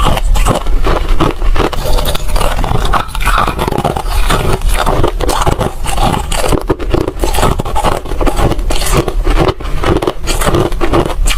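Ice being chewed, a close, continuous run of irregular crunches.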